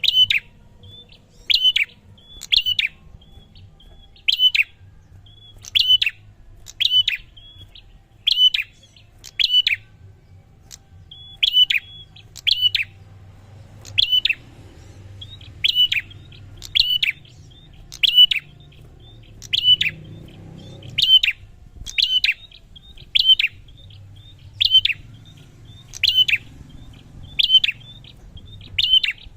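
A prinia (prenjak) calling over and over: sharp, high chirping calls about once every second or so, with faint short notes between them.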